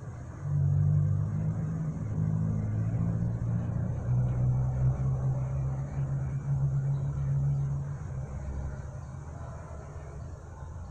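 Low engine hum of a passing motor vehicle, rising sharply about half a second in, holding steady, then fading after about eight seconds.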